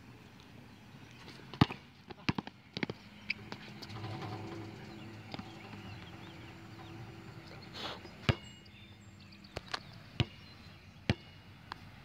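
A basketball bouncing on a hard outdoor court: a run of sharp, uneven thuds, several close together in the first few seconds and single bounces spaced about a second apart near the end.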